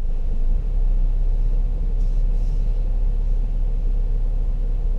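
Steady low rumble of a Ford car reversing slowly: engine running and tyres rolling, with a faint steady hum above it.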